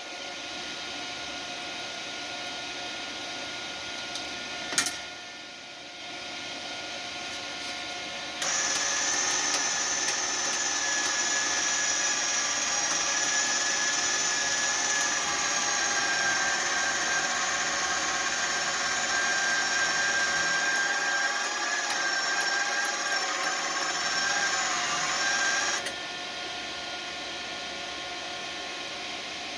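Wire-feed motor of a flux-core wire welder running steadily with a fixed whine for about seventeen seconds, starting about eight seconds in and cutting off suddenly near the end: the trigger held with the contact tip removed, feeding wire through the new torch. Under it a steady hum, and a single click about five seconds in.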